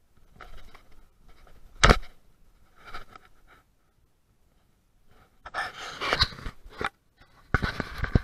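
Boots scuffing and crunching on loose, dry dirt in short irregular bursts, with a sharp knock about two seconds in.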